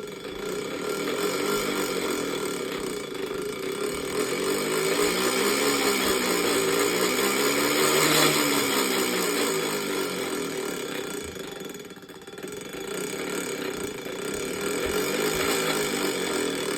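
Minka Aire San Fran ceiling fan running with a loud, continuous grinding whine from its motor, the pitch wavering up and down as it spins. It is the sign of dry bearings, which the owner blames for the noise. The sound swells past the middle and dips briefly about two-thirds through before building again.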